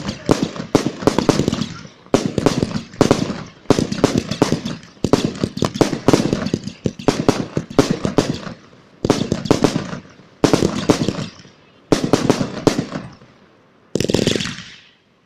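Fireworks display firing in volleys: each salvo is a rapid cluster of sharp bangs and crackles, with a new one about every second and a half, and a last burst with a hissing tail near the end.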